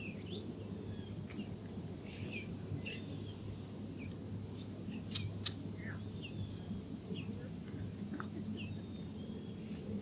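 Bird calls: two loud, high-pitched calls about six seconds apart, with faint scattered chirps between them, over a steady low hum.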